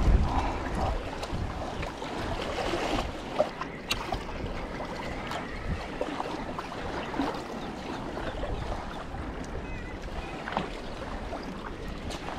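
Choppy sea water splashing and lapping against a sea kayak's hull as it is paddled, with wind on the microphone, strongest right at the start.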